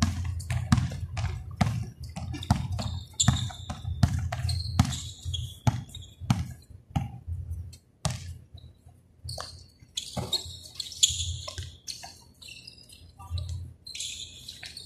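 Basketball bouncing on the court during a game: a quick run of irregular dribble thuds for the first several seconds, then sparser bounces later on.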